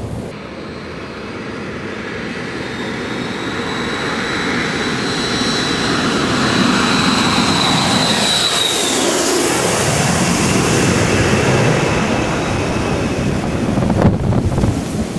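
An aircraft passing overhead: a rushing noise that builds over the first several seconds, with a high whine that slides down about halfway through. A sharp knock near the end.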